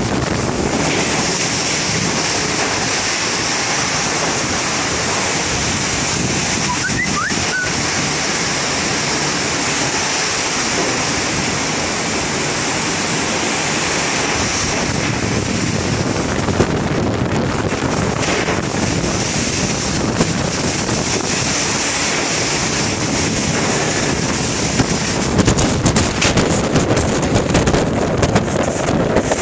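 Heavy rainstorm with strong wind: a loud, steady rush of rain and gusting wind, with wind buffeting the microphone. Sharper crackling bursts come near the end.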